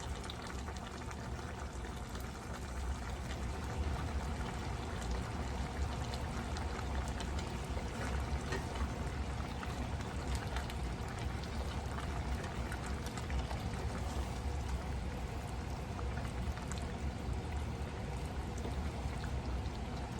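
Thick creamy pasta sauce simmering in a pot: a steady bubbling hiss with many small pops, over a low steady hum.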